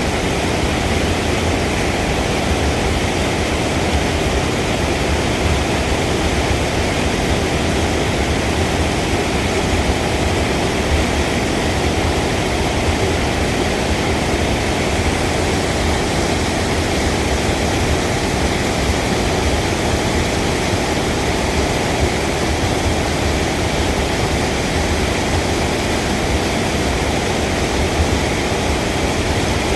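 Steady rushing of a waterfall, a loud even roar of water.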